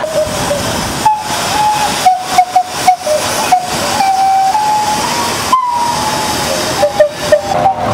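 Steam calliope playing a tune: steam whistles sounding single notes one after another, some short and some held, over a steady hiss of steam.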